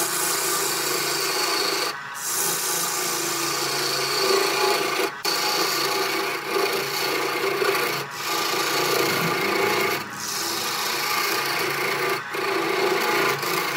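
Wood lathe turning a segmented wooden vase while a hand-held turning tool cuts its spinning face: a steady scraping rasp over the hum and whine of the lathe's electric motor. The sound breaks off briefly about every two to three seconds.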